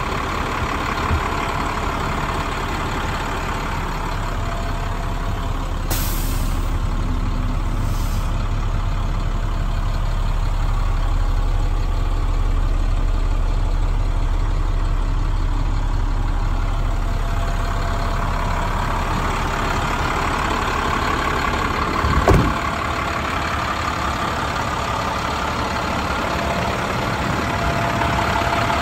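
Diesel engine of a 2009 International straight truck idling steadily. Two brief high hisses come about six and eight seconds in, and a single thump comes about two-thirds of the way through.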